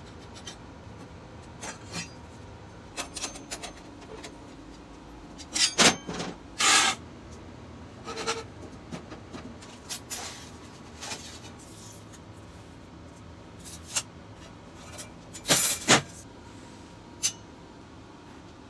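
Steel parts being handled on a steel welding table: scattered clanks, knocks and scrapes of metal on metal, loudest in two clusters about a third of the way in and again near the end.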